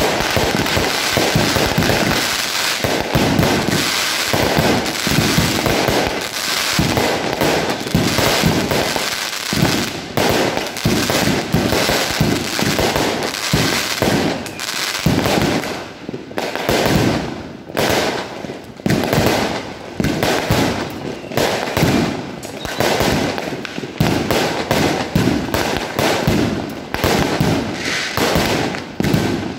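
A 138-shot fireworks cake with 1-inch tubes firing shot after shot: a dense, nearly continuous run of launches and bursts. About halfway through it thins into more distinct separate shots with short gaps between them.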